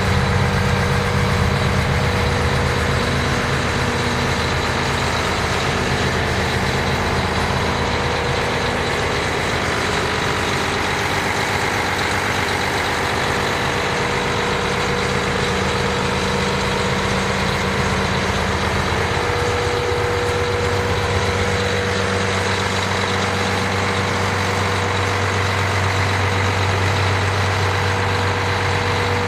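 Mack truck's diesel engine idling steadily.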